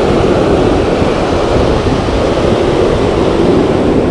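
Ocean surf breaking steadily close by, a loud continuous rushing wash, with wind buffeting the microphone.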